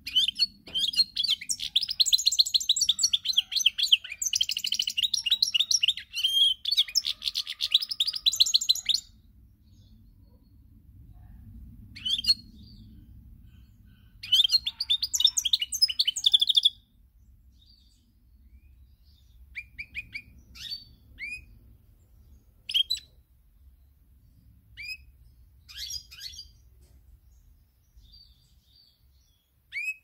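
Caged European goldfinch singing a fast, tinkling twitter in long runs, first for about nine seconds and again briefly halfway through. In the second half it gives only scattered short notes that fall in pitch.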